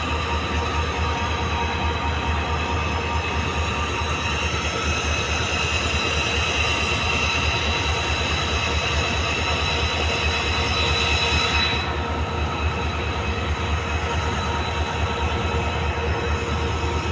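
A train running along the track: a steady low rumble with a high, steady wheel squeal over it. The squeal and hiss grow a little louder in the middle, then drop off sharply about 12 seconds in.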